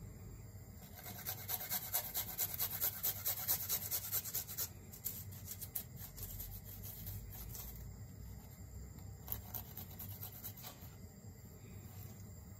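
Garlic cloves being grated on a flat stainless-steel hand grater: a fast run of rasping strokes, about three a second, for a few seconds, then slower, softer strokes.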